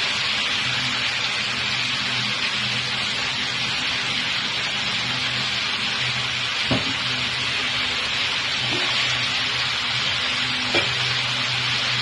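Raw chicken pieces sizzling steadily as they fry on onions and garlic in a pan, with a low hum underneath. Two light knocks, one about seven seconds in and one near eleven seconds.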